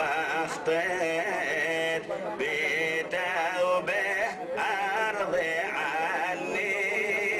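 A man chanting a Jewish liturgical melody into a microphone, in a wavering line full of ornamental turns, broken by short pauses for breath.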